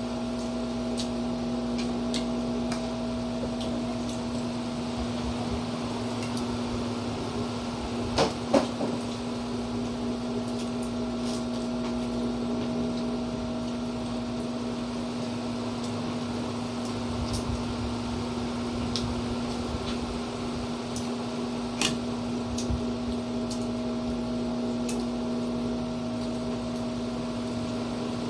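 Steady electrical hum of a running household appliance such as a fan, under a few short clicks and knocks from eating at the table, the loudest a pair about eight seconds in and another about twenty-two seconds in.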